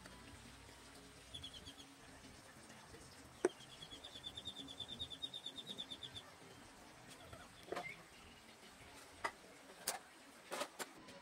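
Faint bird chirping: a short run of high notes, then a rapid trill of evenly repeated high chirps lasting nearly three seconds. Several sharp clicks sound over it, the loudest just before the trill and the rest near the end.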